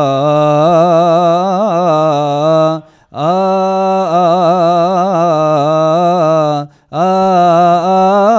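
A single man chanting a Coptic Orthodox liturgical hymn in long, ornamented phrases that wind up and down in pitch, pausing briefly for breath about three seconds in and again near seven seconds.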